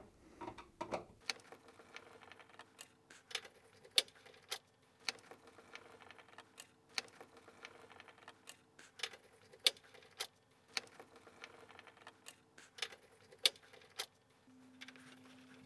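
Light, irregular metallic clicks and ticks of a Phillips hand screwdriver turning screws out of a tumble dryer's sheet-metal front panel, one or two a second.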